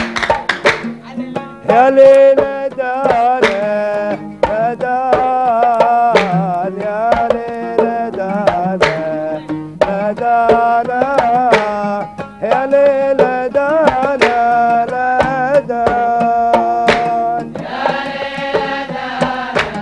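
Kuwaiti fann al-sout music: a man singing a long, ornamented melody over oud and the sharp strokes of mirwas hand drums. The sound fills out near the end.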